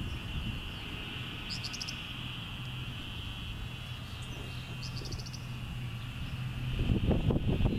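Steady high-pitched trilling chorus of small calling animals around the pond, with two short rapid clicking calls about a second and a half in and again about five seconds in. A few louder knocks near the end.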